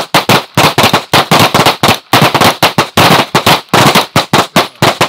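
Several semi-automatic pistols firing rapidly at once along a firing line, the shots overlapping irregularly at about six a second.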